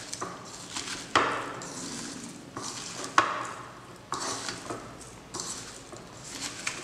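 A hand squeezing and tossing sliced onions and green chillies with spices and oil in a bowl: a repeated wet rustling and crunching, with two sharp knocks against the bowl about a second in and about three seconds in.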